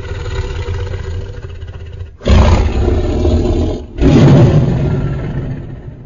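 Carcharodontosaurus roar sound effect: three deep roars in a row. The second and third start about two and four seconds in and are much louder than the first, and the last fades out near the end.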